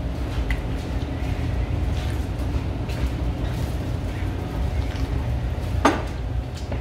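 Soup broth being sipped from a bowl, with faint small slurps over a steady low background rumble. There is one short, sharp clatter near the end as the bowl is set down on the table.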